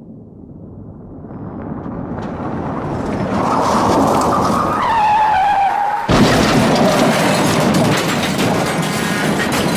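Car crash sound effect. Vehicle noise swells, tyres squeal with a pitch that slides downward, and about six seconds in a sudden loud crash breaks in and continues as dense clattering noise.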